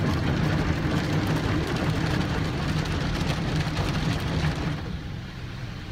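An automatic car wash's spinning cloth brushes scrubbing and slapping against the car's glass, heard from inside the car over a steady low hum. The scrubbing drops away a little before the end, leaving the hum.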